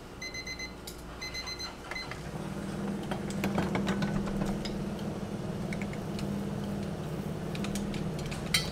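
Electronic timer beeping, two quick runs of short high beeps, going off while the egg waffle iron is cooking. A steady low hum follows, with scattered clicks and knocks as the iron's handles are handled, and a sharp metal click near the end.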